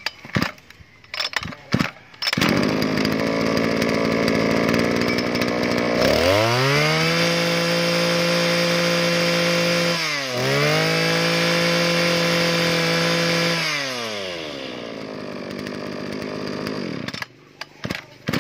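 Komatsu Zenoah G2K 26cc two-stroke brush cutter engine. It is pull-started with a few sharp tugs on the recoil starter and catches about two seconds in, then idles. It is revved up to a high steady whine twice, with a brief dip between, drops back to idle and is shut off suddenly near the end.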